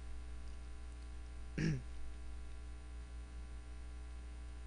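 Steady low electrical hum from the recording setup, with one short voice sound from the person about one and a half seconds in.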